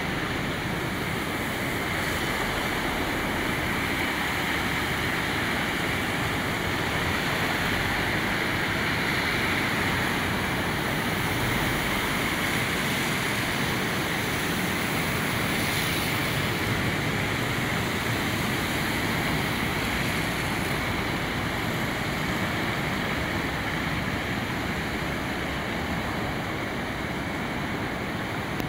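River Irwell in full flood: a steady rushing noise of fast, churning floodwater.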